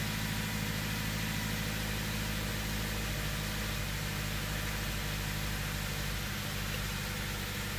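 2015 Subaru Forester's 2.5-litre flat-four engine idling steadily and a bit high just after starting, heard from inside the cabin.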